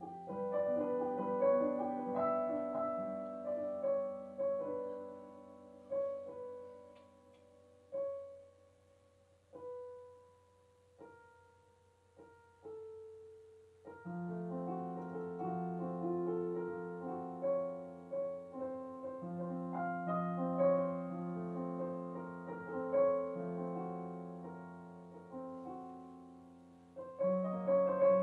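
Solo piano music, an original score accompanying a silent film. Chords thin out to a few sparse single notes about a third of the way in, then a fuller, steady run of notes returns, with louder chords near the end.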